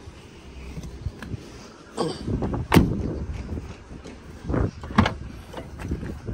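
A Vauxhall Astra's rear door shut with a loud thud a little under three seconds in, then softer clunks near five seconds as the tailgate is unlatched and lifted.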